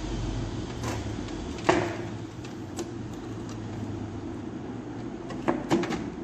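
Sharp plastic clicks and knocks of cable connectors being unplugged inside a desktop PC case as the SATA and power supply cables are pulled out, over a steady low hum. The loudest click comes about two seconds in, with a quick pair near the end.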